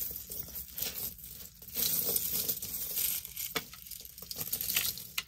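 Metal costume-jewelry chains jingling and clinking as a tangle of silver-tone link necklaces is pulled apart by hand, busiest about two seconds in.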